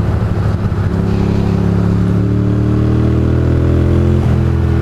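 Ducati Monster's V-twin engine pulling under acceleration, its revs climbing steadily, then dropping with a gear change about four seconds in.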